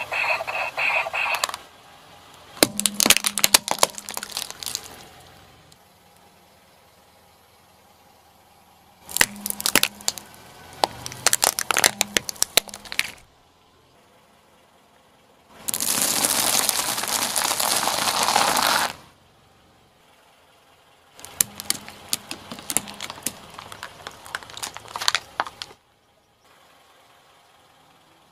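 Things crunching and cracking under a rolling car tyre, in four separate bursts with short quiet gaps between them. Three bursts are rapid strings of sharp cracks. The third, in the middle, is a denser steady rush of crunching about three seconds long.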